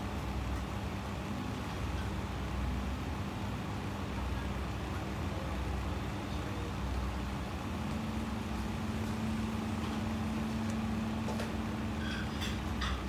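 Steady low background hum and rumble, with a faint steady tone running through it and a few light clicks near the end.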